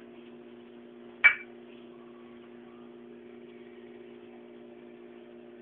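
A single sharp clink of kitchenware about a second in, with a short ring, over a steady low hum.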